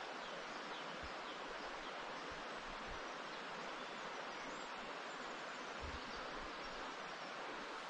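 Forest ambience: a steady, even rushing noise, with a few faint high chirps and occasional soft low bumps.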